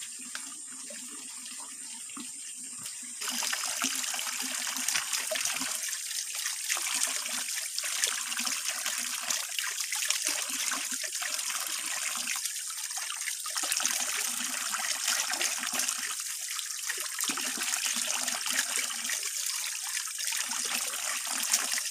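Spring water pouring from a bamboo spout and splashing over hands being washed, a steady splashing hiss. It gets louder about three seconds in, after a quieter stretch of running water.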